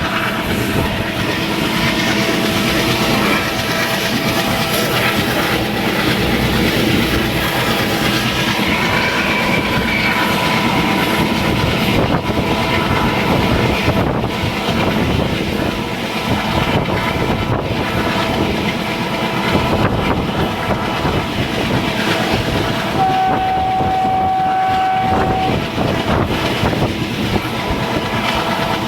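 ALCO WDM3A diesel locomotive running under power, a steady loud rumble of engine and wheels on rail. Near the end the horn sounds once, one steady note held for about two and a half seconds.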